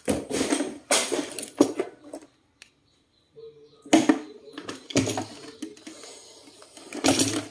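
Handling noise: a series of knocks and metallic clatters as wires and clip leads are moved over an amplifier's casing on a wooden workbench, with a brief dead gap about two and a half seconds in.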